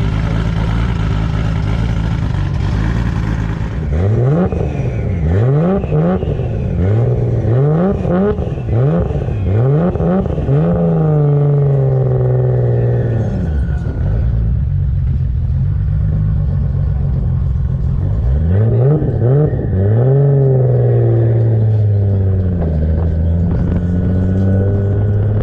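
A car engine idling, then revved in a quick string of throttle blips, its pitch shooting up and dropping back about once a second. It settles back to a steady idle, is blipped again several times about three quarters of the way through, and returns to idle near the end.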